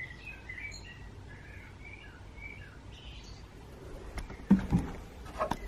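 A bird chirping, a series of short high calls over the first few seconds. From about four seconds in come several sharp knocks and thumps, the loudest about halfway through that stretch.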